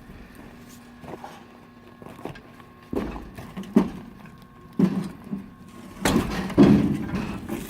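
Custom log loader for an outdoor wood furnace working: a series of clunks and knocks, several spaced a second or so apart, the loudest cluster near the end.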